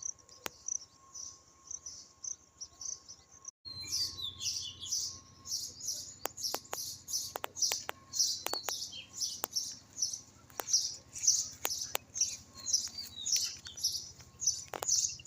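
Small birds chirping: short, high chirps repeating several times a second, louder after a brief gap about four seconds in, with a few sharp clicks among them.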